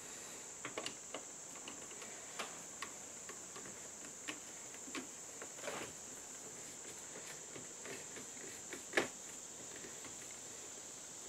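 Faint small clicks and taps of a screwdriver and wire against a circuit breaker and the metal service panel as the hot wire is fitted and tightened, with one louder knock about nine seconds in, over a steady high-pitched hiss.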